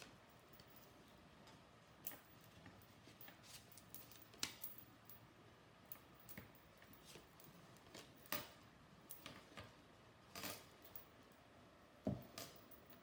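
Tarot cards being dealt and laid down on a table: scattered soft taps and card snaps, the loudest about four, eight and twelve seconds in.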